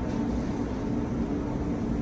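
Steady mechanical hum of running kitchen machinery, a low drone with a faint steady whine over it.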